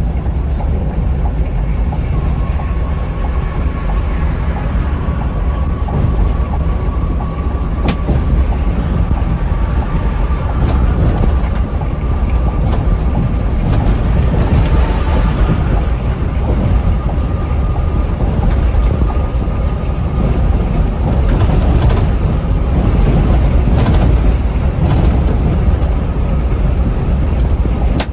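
Scania K360iB coach travelling at highway speed: a steady heavy rumble of engine and road noise with a faint constant whine above it, growing a little louder about halfway through.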